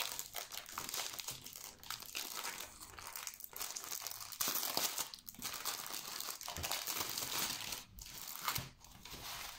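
Plastic wrapping crinkling and rustling in irregular handfuls as a rolled diamond-painting canvas is unwrapped and unrolled by hand, with a few brief pauses.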